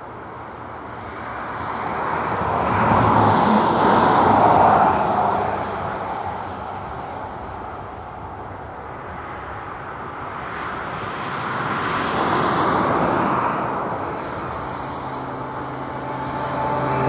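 Two road vehicles passing by one after the other: tyre and engine noise swells and fades, peaking about four seconds in and again about twelve seconds in, with a slight drop in pitch as the first goes past.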